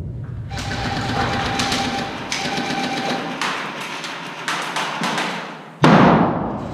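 An airsoft pyrotechnic grenade goes off with a loud bang about six seconds in, echoing and fading in a large empty concrete room. Before it, several seconds of hissing and scattered sharp clicks.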